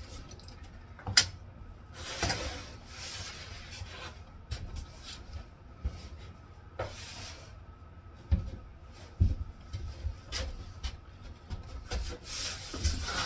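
Plywood pieces being handled on a workbench topped with closed-cell foam: a sharp click about a second in, then wood rubbing and scraping as the straight edge and cut-off piece are slid off, with a few dull knocks.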